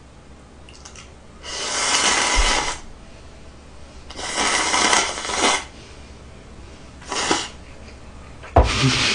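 Person slurping Neoguri ramen noodles from a small cup, four loud slurps, the last near the end.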